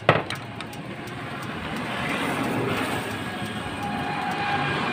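A sharp metal knock as the piston is drawn out of the cylinder of a Changfa R190 diesel engine. Then the steady rumble of a passing vehicle, growing louder from about a second and a half in and holding.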